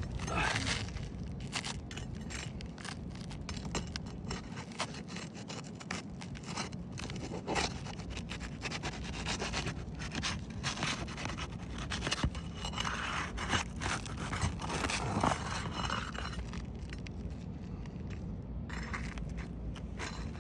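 Repeated scraping and rubbing against old roof shingles, with scattered sharp clicks and crackles, as work starts on lifting a creased shingle. The shingles are brittle and no longer pliable.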